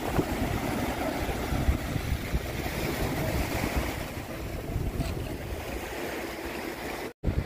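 Small waves breaking and washing up a sandy beach, with wind buffeting the microphone as a low rumble. The sound drops out for a moment near the end.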